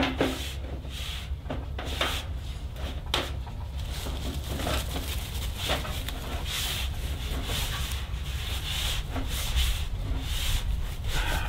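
Sheet-metal stovepipe sections scraping against each other in repeated short rasps as they are twisted and pushed together at the top of the pipe.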